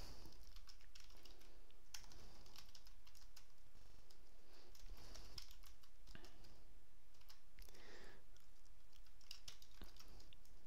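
Someone typing on a computer keyboard: quiet, irregular keystrokes with short pauses between them.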